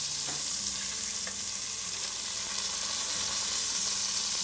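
Pheasant breasts pan-frying in clarified butter over a medium gas flame, a steady sizzle. A few light clicks of the knife and fork on the pan come through it.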